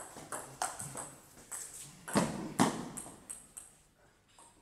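Table tennis rally: the plastic ball clicks sharply off rubber-faced wooden bats and the table in a quick, irregular series. The two loudest hits come a little over two seconds in, then the clicks thin out and fade as the rally ends.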